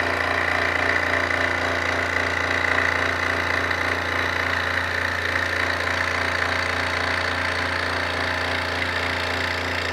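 Scroll saw running steadily as its reciprocating blade cuts a wooden push stick along a traced line, with a constant low hum.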